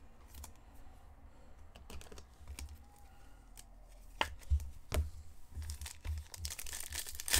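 Trading cards and a card-pack wrapper being handled: scattered soft clicks and rustles, then a burst of crinkling and tearing near the end as a pack is ripped open.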